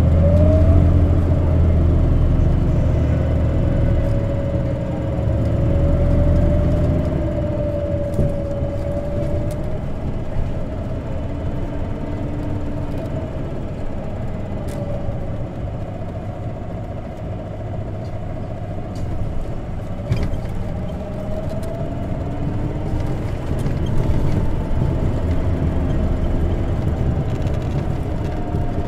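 Isuzu Erga CNG city bus running, heard from inside the passenger cabin: a low engine drone, heaviest for the first ten seconds or so and then easing, under a whine that finishes climbing about a second in and then holds and wavers as the bus keeps going.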